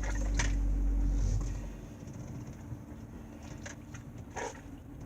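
Low hum inside a car. A heavier rumble in the first two seconds fades out, and a few soft clicks are heard along the way.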